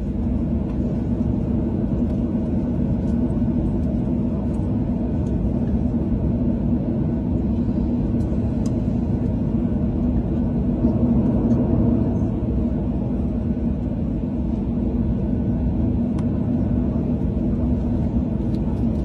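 Steady low rumble inside a jet airliner's cabin as it taxis at low speed toward the gate after landing, its engines running at idle.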